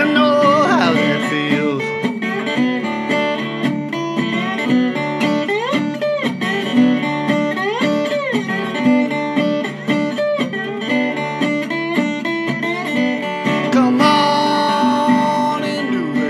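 Background music track of acoustic guitar, plucked notes with sliding pitch bends, ending on a long ringing chord.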